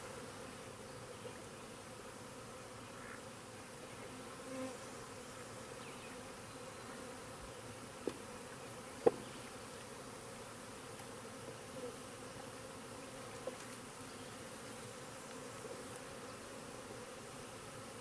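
Honey bees buzzing steadily around an open hive whose frames are out and covered in bees. Two short, sharp knocks stand out about 8 and 9 seconds in.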